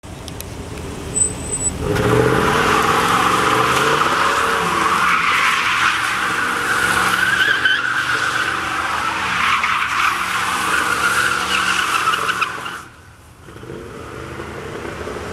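Chevrolet Camaro Z28's V8 revving hard as its rear tyres break loose in a burnout. The tyres squeal steadily for about ten seconds, then the squeal cuts off suddenly near the end and the engine settles back.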